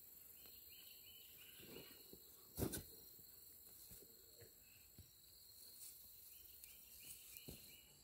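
Near silence with faint high chirping in two short runs, one near the start and one near the end, and a single sharp knock about two and a half seconds in.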